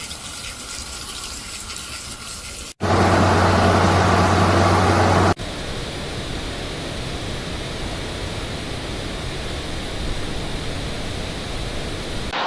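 Rushing floodwater: a steady, noisy rush, cut abruptly into several short clips. One louder clip, from about three to five seconds in, carries a steady low hum under the rush.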